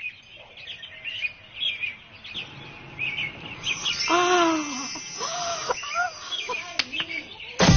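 Birds chirping in quick, short calls, with a couple of wordless, voice-like calls that rise and fall, about four and five seconds in.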